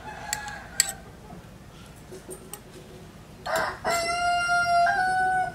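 A rooster crows once, a long held call starting about three and a half seconds in that steps up in pitch near the end. Earlier there are a fainter short call and two sharp clicks.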